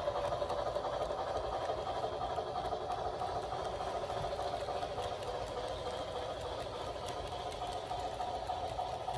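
HO scale model passenger train running on its track: a steady whirring hum with light, rapid clicking of the wheels on the rails, growing slightly fainter.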